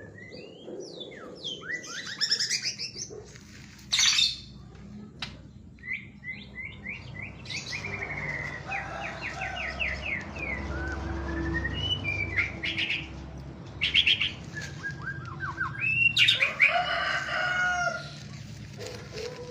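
White-rumped shama (murai batu) singing a long, varied song of fast trills, sweeping whistles and loud sharp notes, running through its repertoire of learned imitations of other birds' calls.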